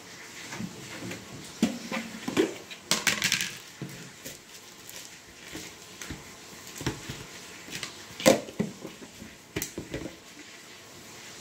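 Kitchen items being handled at a counter: irregular clicks, knocks and rustles, busiest in the first few seconds, with a sharp knock about eight seconds in.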